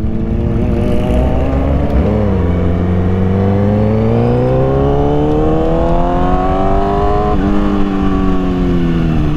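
Motorcycle engine under way. After a short blip about two seconds in, its pitch climbs steadily for about five seconds, drops suddenly at a gear change, then sinks slowly as the throttle eases off.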